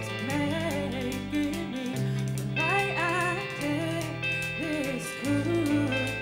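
A band playing live: a woman singing the lead melody over electric guitar, bass and drums.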